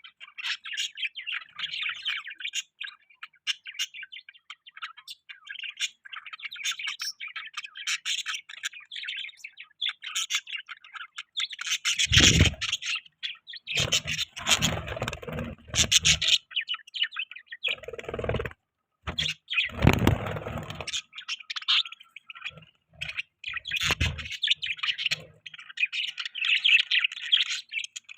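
Budgies chirping and chattering continuously in quick, busy trills. In the middle and again near the end come several louder, deeper knocking or rustling noises.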